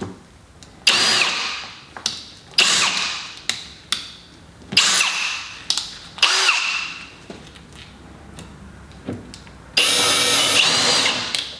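Electric drill run in five short bursts, each spinning up and winding down, the last one longer: a drill bit making small marking holes through a paper stencil into a wooden tabletop.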